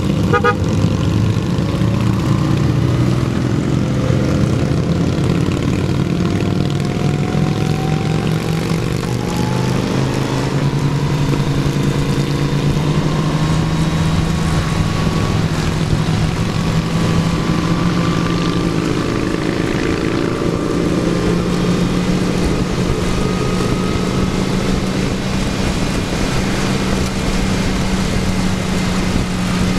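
Motorcycle engine running at road speed under wind and road noise. Its note rises slowly a few times as the bike accelerates along the curves.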